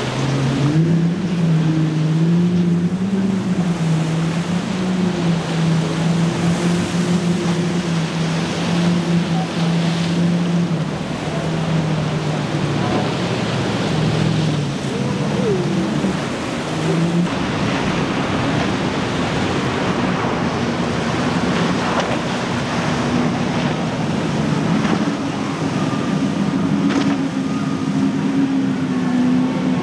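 Boat motors running and shifting pitch as the throttle changes, over the steady rush of waves and rough water.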